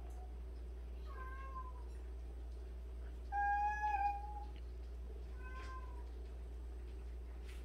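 A domestic cat meowing three times: a short meow about a second in, a longer, louder one about three and a half seconds in, and another short one near six seconds.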